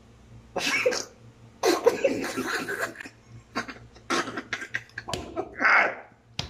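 Men coughing and laughing in short, sudden bursts, with one longer burst near the end.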